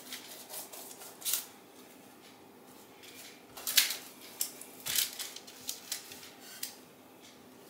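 Silicone pastry brush stroking and dabbing egg wash over raw puff pastry: light, scratchy swishes, with a few sharper clicks, the loudest about four and five seconds in.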